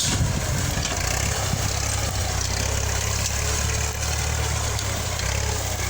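Tractor engine running steadily as it pulls a plough through a field in a second ploughing.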